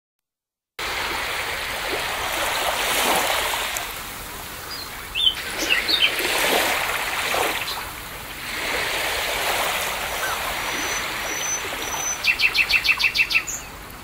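Sea waves washing in and receding, the surf swelling and falling every few seconds, with birds chirping over it; the sound starts about a second in. Near the end a bird gives a quick run of about nine even chirps.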